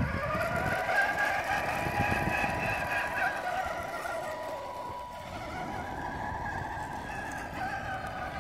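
Radio-controlled scale truck's electric motor and gearbox whining, rising in pitch in the first second as it pulls away, then steady, with tyre rumble on rough asphalt as it tows a trailer; the whine fades a little as the truck drives off.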